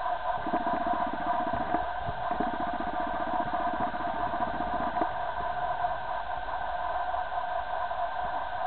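A steady machine hum made of several tones. From about half a second in to about five seconds, a low, fast rattle like a small engine idling joins it, with a few faint clicks scattered through.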